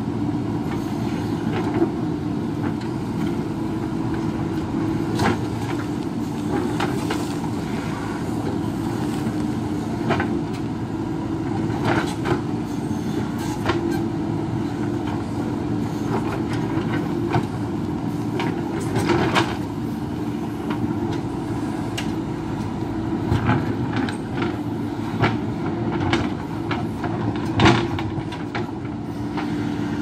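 JCB backhoe loader's diesel engine running steadily under load while its backhoe bucket digs and prises rock out of a bank, with irregular clanks and cracks of stone and steel bucket striking rock; the sharpest knock comes near the end.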